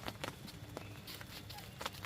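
Faint, scattered raindrops tapping, a few irregular drips a second over a soft hiss of rain.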